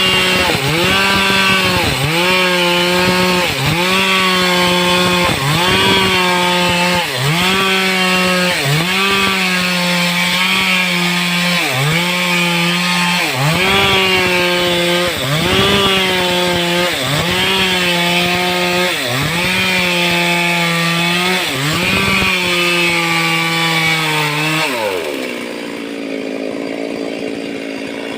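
Stihl two-stroke chainsaw at full throttle cutting into teak. Its pitch dips and recovers about every second and a half as the chain bites. Near the end the engine drops to a lower speed.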